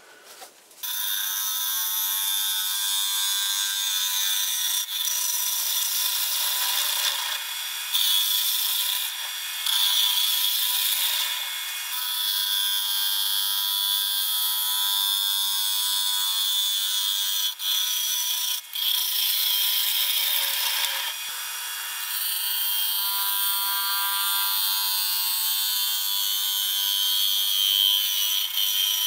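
Bowl gouge cutting the inside of a spalted beech bowl spinning on a wood lathe: a continuous hiss of wood being sheared into shavings, over a steady high whine. It starts about a second in and has a few brief dips where the cut lifts.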